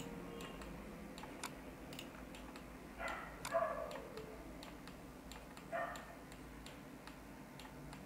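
Faint, irregular clicking of a computer mouse as the view is dragged and clicked, with two short, louder sounds in the background about three seconds in and again near six seconds.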